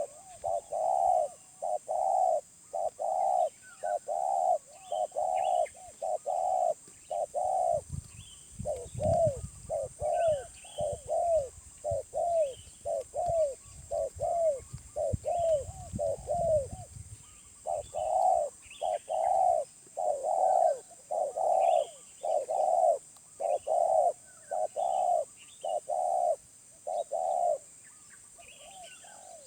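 Wild spotted dove cooing in long repeated runs of short notes, about two a second, pausing briefly twice. Small birds chirp faintly in the background, and a low rumble runs underneath through the middle.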